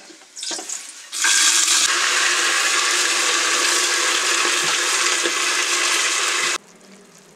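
Loud sizzling hiss as soaked, still-wet black urad dal and kidney beans hit hot ghee in a pressure cooker. It starts about a second in and cuts off suddenly near the end.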